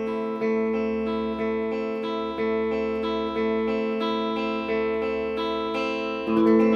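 Acoustic guitar picking the notes of an A minor arpeggio one at a time, about one note a second, each left ringing into the next. A louder, fuller attack comes near the end, likely a chord.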